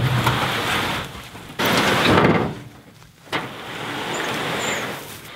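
A canoe being dragged through ferns and brush: the hull scraping and rustling through the undergrowth in three long pulls with short pauses between them.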